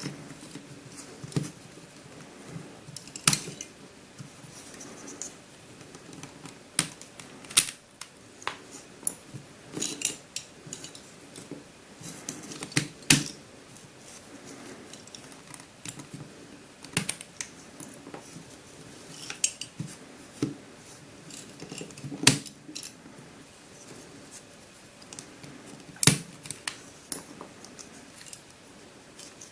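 Plastic pieces of a Curvy Dino twisty puzzle clicking and clacking as they are pried apart and set down, in irregular sharp clicks of varying loudness.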